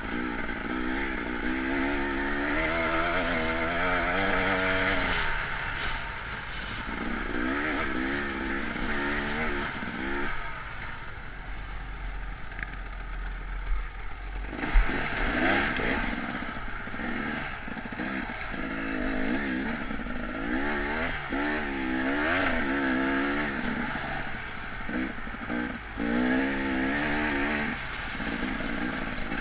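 KTM dirt bike engine revving up and down over and over as the bike climbs a rough trail, easing off for a few seconds near the middle. A sharp knock about fifteen seconds in is the loudest moment.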